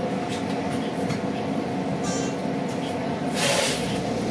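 City transit bus running, heard from inside the cabin: a steady drone of the drivetrain with a few steady tones, and a short hiss about three and a half seconds in.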